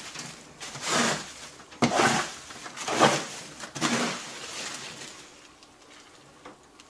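Small plastic dustpan scooping dirty wood-shaving bedding off a cage floor and tipping it into a garbage bag: rustling, scraping scoops about once a second, four times, then quieter.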